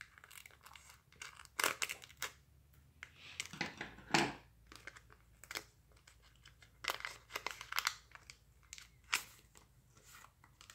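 A foil Pokémon card mini pack being torn open and its wrapper crinkled, in several short bursts of tearing and rustling.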